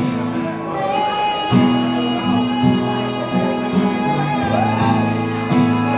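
Live acoustic guitar strumming chords, with a voice singing a drawn-out wordless note over it, once near the start and again near the end.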